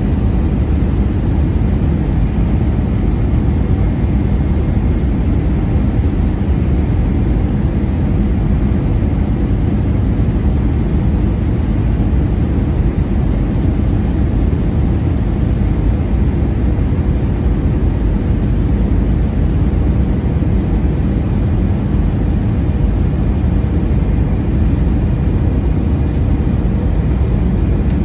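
Cabin noise of an Airbus A320 in flight, heard from a window seat over the wing: a deep, steady rumble of airflow and the jet engines, with a faint whine above it.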